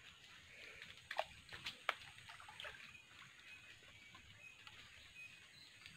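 Water splashing and sloshing in a shallow stream, with a few sharp splashes between one and two seconds in. Faint high chirping runs under it throughout.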